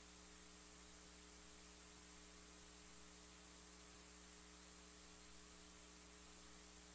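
Near silence: a faint, steady electrical hum with hiss, the audio feed's noise floor.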